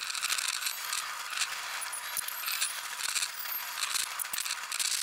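Sound from an Enoshima Electric Railway train's cab played at twenty times normal speed: a dense, high-pitched chatter of rapid clicks and rattles with almost no low sound.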